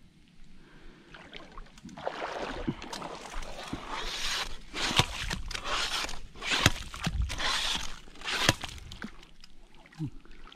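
Yabby pump being worked into wet sand under shallow water, its plunger seal cut from a rubber thong: splashing and sloshing strokes begin about two seconds in, with several sharp slaps.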